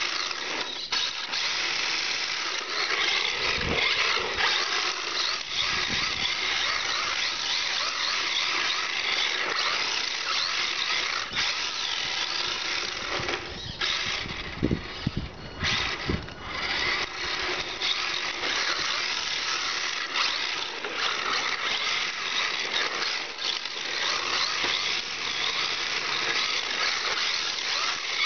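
RC drift car's motor whine and tyres scrubbing on asphalt as the car drives and slides. A few low thumps come about halfway through, along with a brief dip in the sound.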